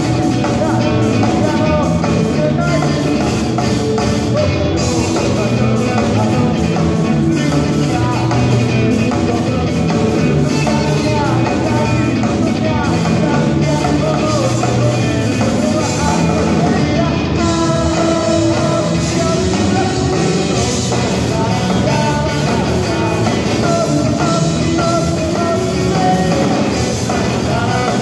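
A live rock band playing loud, with an electric guitar and a lead vocalist singing.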